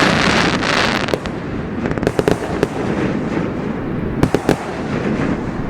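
Fireworks going off: a dense crackle with scattered sharp bangs, and a cluster of loud reports about four seconds in.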